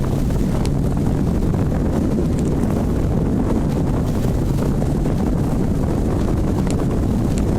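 Steady low rumble of a boat under way, with wind buffeting the microphone.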